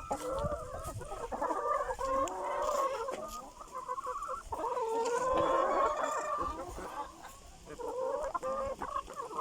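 A flock of chickens clucking as they feed on zucchini, many calls overlapping almost without a break.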